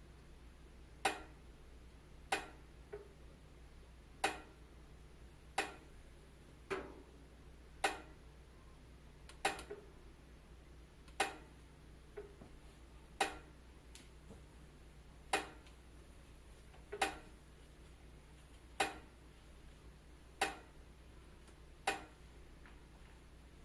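Wood fire in a fireplace crackling, with single sharp pops at uneven gaps of about one to two seconds over a faint low hum.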